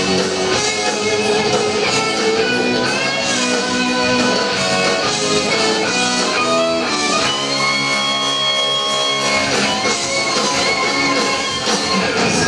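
Live heavy metal band playing an instrumental passage, distorted electric guitars to the fore over bass and drums, with long held guitar notes just past the middle.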